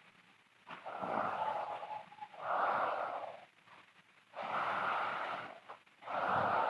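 A sleeping girl snoring loudly with breathy, rasping snores. There are two full breaths, each a pair of rasps about a second long, and the first rasp of each pair trails off into a faint thin whistle.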